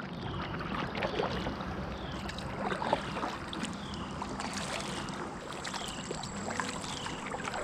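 Kayak paddling on a river: the paddle strokes through the water, with splashing, dripping and small knocks.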